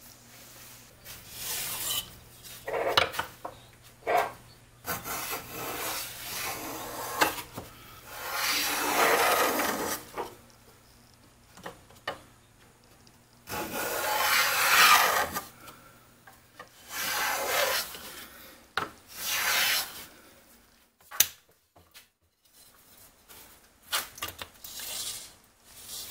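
Hand plane shaving along the edge of a walnut board: several long cutting strokes of a second or two each, with shorter scrapes and knocks of wood being handled around them.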